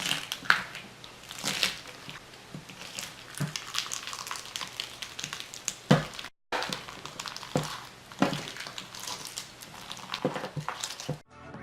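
Slime being squeezed and pressed by hand, giving a run of irregular crackling and popping clicks, with a brief silent break about six seconds in.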